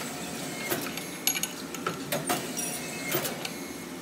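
Sunnen power-stroke hone running while a small block Chevy connecting rod is rough-honed on its mandrel with the coarse stone: a steady machine hum with irregular sharp metallic clicks and clinks, some ringing briefly.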